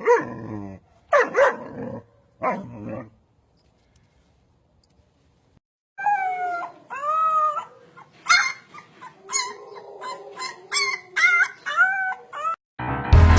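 Dog barking and howling: three short howling barks in the first three seconds. After a pause of about three seconds comes a quick string of yips and howls that slide up and down in pitch.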